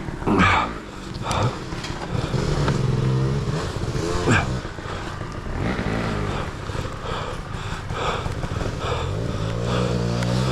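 Two-stroke dirt bike engine revving up and down in repeated bursts as the bike works up a trail, with a few sharp knocks near the start and about four seconds in.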